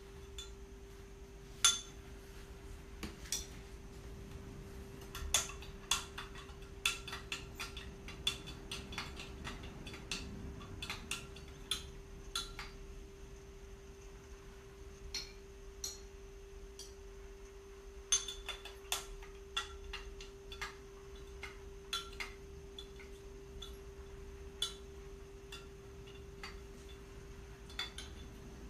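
Kitchen utensils clinking against a cooking pot in scattered, irregular knocks while tea ingredients are handled and added, over a steady low hum.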